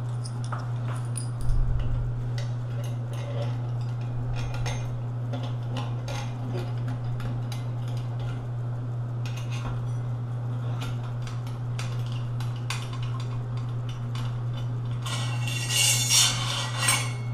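Small metallic clicks and clinks as a screwdriver drives screws through a stainless steel grab bar's flange into the wall anchors, with a thump about a second and a half in. A louder, scraping rattle comes near the end as the bar is grabbed, over a steady low hum.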